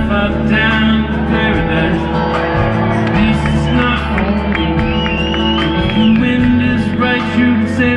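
Live band playing a slow soft-rock instrumental passage: acoustic guitar over sustained keyboard chords, with a melodic lead line gliding over the top.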